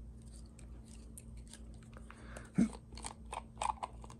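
Hands handling a small plastic glue bottle and tools: scattered light clicks and taps, a dull knock about two and a half seconds in, then a quick run of clicks near the end.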